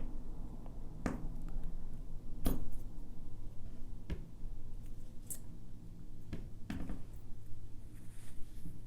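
Jewelry pliers and wire clicking against each other as a wire S-clasp is bent into shape: five small sharp clicks, spaced a second or more apart.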